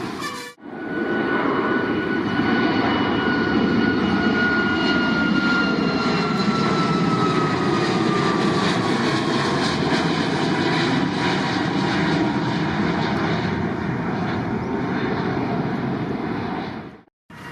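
Jet airliner engines passing close by: a loud, steady rush with a thin high whine that slowly falls in pitch over several seconds.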